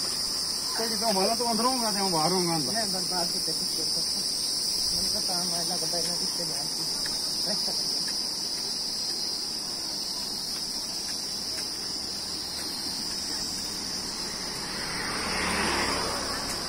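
Insects shrilling in a steady, high-pitched continuous drone. People's voices are heard in the first few seconds, and a broad rushing sound swells up near the end.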